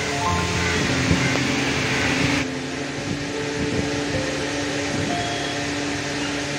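A steady hiss from oil heating in a steel kadai. About two and a half seconds in it gives way to a hand beating thick dal batter in a steel bowl, with soft irregular wet strokes. Quiet background music runs underneath throughout.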